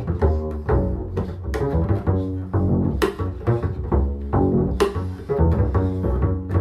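Instrumental film score music with a strong low bass line and many short, sharply struck notes.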